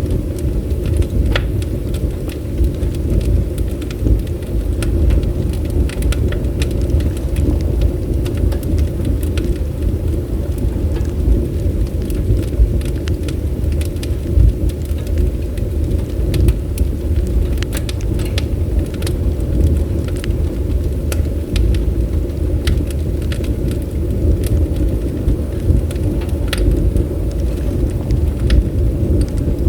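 Bonfire burning: scattered sharp crackles and pops over a steady low rumble.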